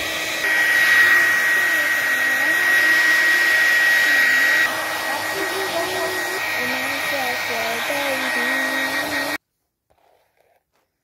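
Handheld hair dryer blowing steadily with a thin whine; it gets louder about half a second in, eases back a little midway, and is switched off abruptly about two seconds before the end.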